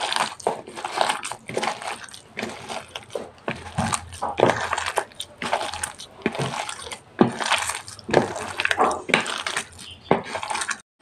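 A bare hand squeezing and kneading a moist mix of soaked soya chunks, sliced onion, mustard paste and mustard oil in a plastic bowl. The squelching and squishing comes in uneven bursts, about one or two a second.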